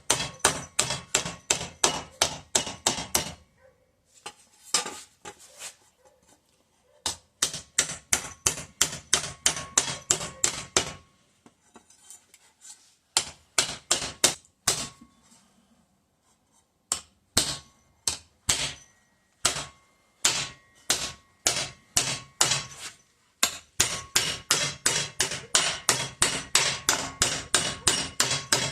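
A hammer striking a steel patch piece as it is hand-formed over the edge of a 2x4 block. The strikes come in quick runs of about three or four a second, each with a slight metallic ring, and the runs are broken by a few short pauses.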